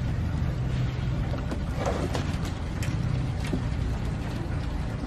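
A steady low motor-like hum, with a brief higher sound about two seconds in.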